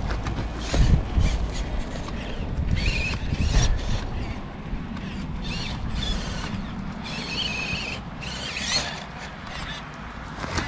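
Small electric RC crawler's motor and gearbox whining in short spurts as it climbs a dirt bank, under a steady rumble of wind on the microphone.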